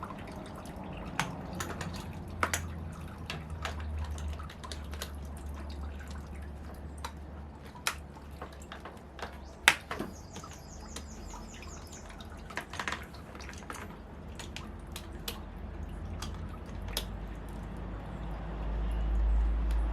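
Irregular sharp clicks and taps of hand tools and parts while a car's radiator is being taken out, with one sharper knock about ten seconds in, a brief high fluttering tone just after it, and a low hum underneath.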